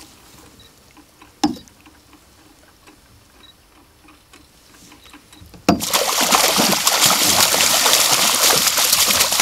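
A pike thrashing in a landing net at the water's surface, splashing hard and without a break from a little past halfway through. Before that it is quiet, apart from a single knock about one and a half seconds in.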